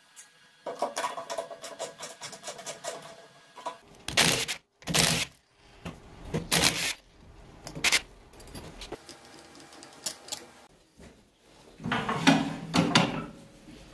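Cordless drill driving screws through a metal faceplate ring into a pine log, in four short bursts. Before them comes a few seconds of rapid metallic clicking and rattling, and near the end a cluster of loud knocks.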